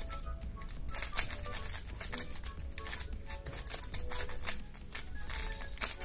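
Plastic layers of a magnetic 3x3 speed cube clacking in quick, irregular turns by hand, with one sharper clack near the end. Background music plays underneath.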